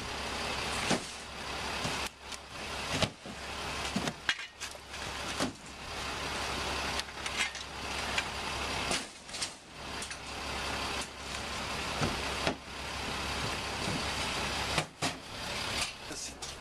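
A folding aluminium hand truck and plastic tote bins clattering and knocking as they are unloaded and lifted into a cargo van, with many separate knocks over a steady rushing background noise.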